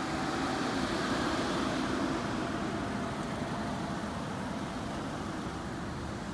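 Passenger car running close by at low speed: a steady engine rumble mixed with outdoor hiss.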